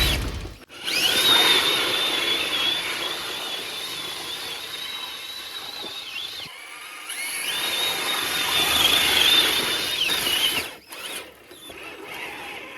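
An RC crawler's electric motor whining under throttle in two stretches: a high whine rises and holds for about five seconds, drops away, then rises and holds again for about three seconds, over a rushing hiss.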